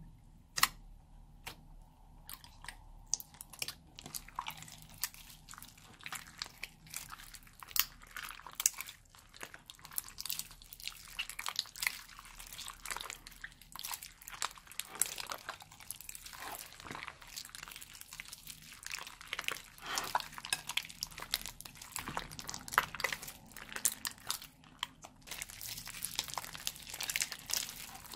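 Hands kneading and squeezing a big batch of mixed slime in a glass bowl: sticky, wet clicks and crackles. They are sparse at first and grow denser and louder from about four seconds in.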